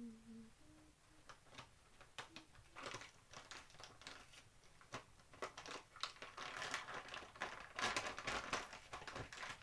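Plastic packet crinkling as it is handled and opened, densest about six to nine seconds in, with scattered small clicks.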